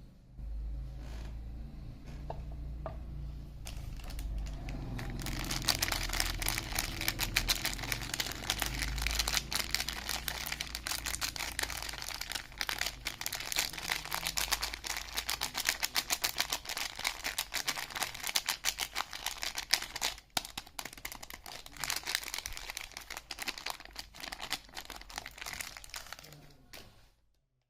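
Soap wrapper crinkling and tearing as a bar of soap is unwrapped by hand: dense crackling that builds about five seconds in and stops abruptly near the end.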